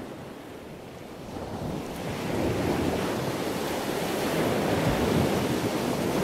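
A steady rushing noise that swells in over the first two or three seconds and then holds steady.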